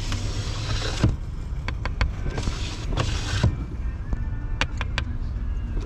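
A vehicle idling, with music playing and a few scattered clicks and rustles.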